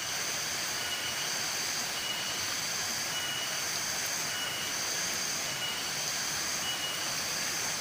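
Steady rush of a forest spring stream, overlaid with a high-pitched call that pulses on and off about once a second.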